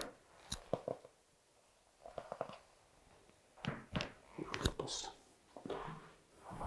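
A single sharp crack right at the start, the pop of a spinal joint under a chiropractic thrust to the upper back, followed by scattered soft knocks and rustling of hands and clothing.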